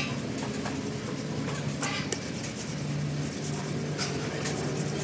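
Sandpaper rubbed by hand over the painted steel of a tractor wheel plate: a steady scratchy rubbing in back-and-forth strokes.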